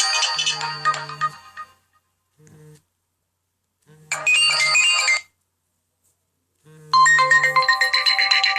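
Nokia N97 Mini ringtones playing from the phone's speaker while its vibration motor buzzes in pulses about a second long. One melody ends about two seconds in, a short burst of tones plays around four seconds in, and another ringtone starts about seven seconds in.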